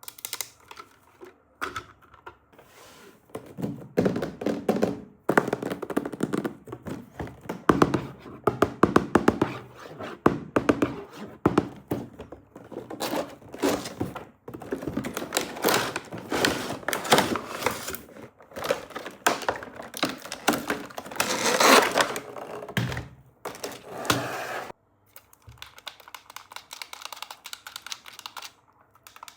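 Toy packaging being handled and opened by hand: a long run of clicks, taps, knocks and short scrapes, quieter for the last few seconds.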